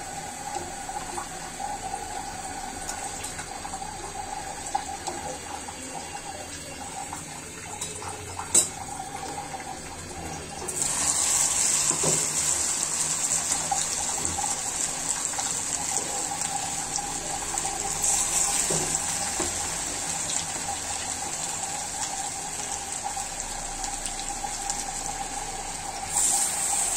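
Lentil piyaju batter frying in hot oil in an iron karahi: a loud sizzle starts suddenly about eleven seconds in as batter goes into the oil and slowly eases off, then jumps again near the end as more batter is dropped in. Before that, a quieter hiss of oil with a faint steady hum and a single sharp click.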